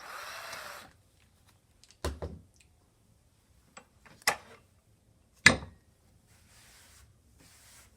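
A short scraping or sliding noise, then three sharp separate knocks a second or two apart, the last one the loudest: hard objects knocked on or set down on a wooden workbench.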